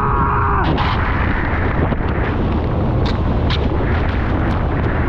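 Plastic whitewater kayak sliding fast down a wet concrete drainage ditch: a loud, steady rumble of the hull scraping over the concrete and its thin sheet of water, with a couple of sharp knocks about three seconds in.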